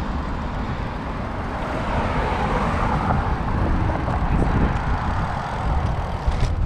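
Steady rumble of road and wind noise from a moving vehicle, with a brief click or knock near the end.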